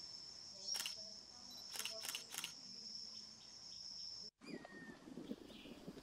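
Steady, high-pitched insect buzz, broken by several sharp clicks about one and two seconds in. It cuts off abruptly about four seconds in, followed by a short falling call and low rustling.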